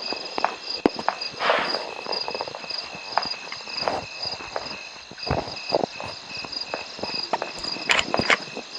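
Irregular footsteps and knocks over a steady, high-pitched pulsing trill from insects.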